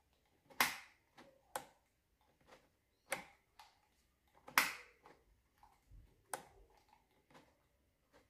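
Throttle cable and linkage of a small outboard motor's carburettor being worked by hand, with the engine stopped, giving irregular sharp clicks and light taps: five louder clicks about a second and a half apart and fainter ones between.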